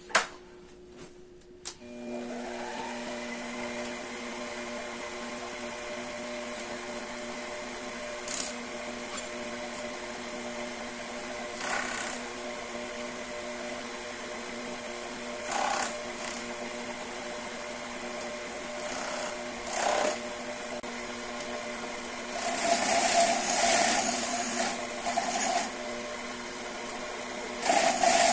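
Small benchtop metal lathe's motor starts just after a sharp click and runs with a steady whine. Light cuts scrape now and then across a stack of spinning aluminum discs, with a longer, louder cut near the end.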